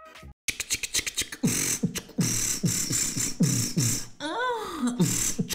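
Human beatboxing into a microphone: starting about half a second in, a fast rhythm of vocal bass kicks, about three a second, under hissing snare and hi-hat sounds, with a siren-like vocal sweep rising and falling a little after four seconds in.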